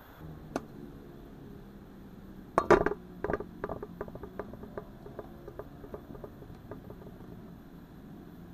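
Hard objects knocking and clinking: a cluster of loud knocks about two and a half seconds in, then a run of lighter taps, about three a second, that fade away.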